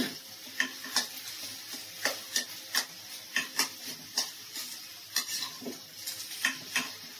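Metal spatula scraping and knocking against a steel kadhai as a potato-and-pea filling is stirred, at an uneven pace of about two strokes a second, over a faint sizzle of the filling in hot oil.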